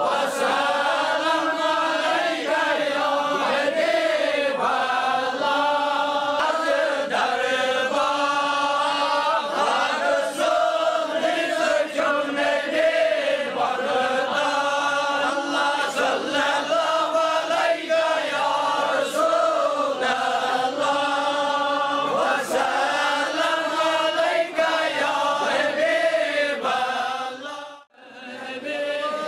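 A group of men chanting a devotional Sufi prayer together, many voices in a continuous sing-song recitation. The sound drops out briefly near the end, then picks up again.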